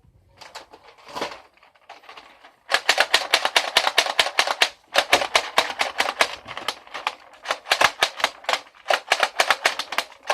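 Plastic Nerf blaster mechanism worked by hand in quick succession. After a few softer knocks comes a fast run of sharp plastic clacks, about six a second, with a brief break about five seconds in.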